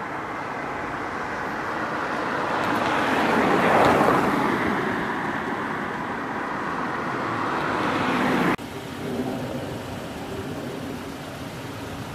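Road traffic: a car passes close by with tyre and engine noise that swells to a peak, fades, then rises again and cuts off abruptly about two-thirds of the way through, leaving quieter traffic hum.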